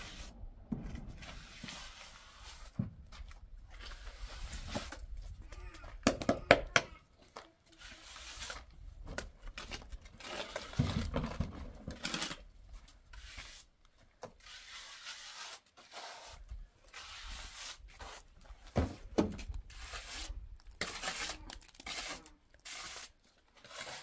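A trowel scraping and smearing wet cement plaster onto a concrete-block wall, in irregular strokes, with a few sharp knocks, the loudest about six seconds in and another near the end.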